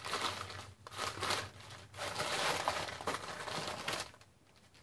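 Gift wrapping crinkling and rustling by hand in several bursts as the next item is unwrapped, dying down near the end.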